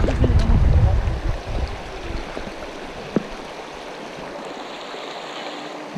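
Shallow river rippling over a stony bed, a steady rushing hiss. A low rumble lies over it for the first two seconds, and there is a single sharp click about three seconds in.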